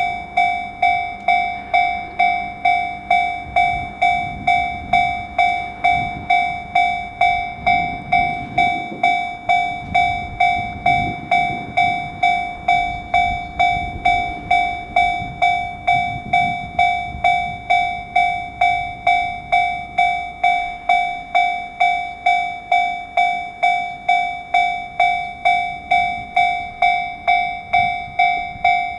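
Japanese railway level-crossing warning bell ringing steadily at about three strikes every two seconds, each strike fading quickly. A low rumble rises and fades underneath in the middle.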